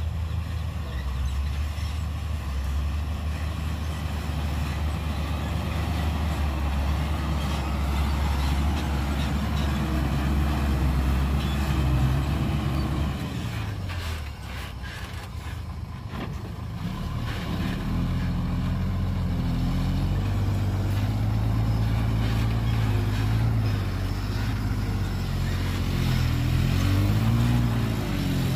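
Heavy diesel earth-moving machinery running. A steady low engine drone, then, after a brief dip about halfway through, engine notes that rise and fall repeatedly as the machines rev under load.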